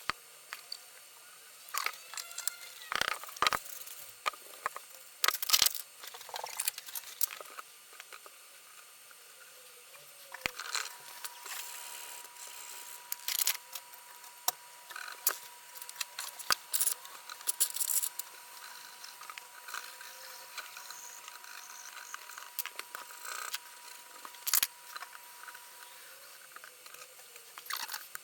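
Hand cleaning of a Macintosh Classic's plastic case: irregular scrubbing and scraping strokes with clicks and knocks as the case is handled. A faint steady tone runs through the middle stretch.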